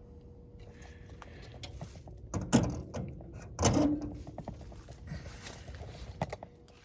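Scattered clicks and knocks from objects being handled and set down, with two louder clunks about two and a half and three and a half seconds in. A faint steady hum runs underneath.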